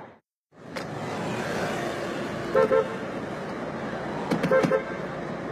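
Car horn honking over steady street traffic noise: two quick toots about two and a half seconds in, then a burst of several honks a couple of seconds later.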